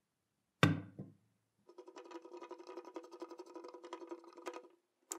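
One sharp knock as the clown figure is set down on the mechanical bank's metal base. Then about three seconds of steady grinding, clicking rasp as a screwdriver drives a screw through the figure's foot into the base, ending in a short click.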